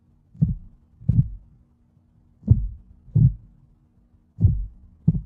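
Heartbeat sound effect: slow pairs of low, dull thumps (lub-dub) about every two seconds, three pairs in all, over a faint steady hum.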